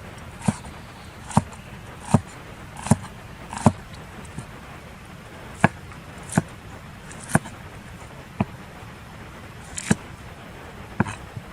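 Chopping: a series of sharp strikes, roughly one every three-quarters of a second, about five in the first run, then a pause, then several more spaced a little more unevenly.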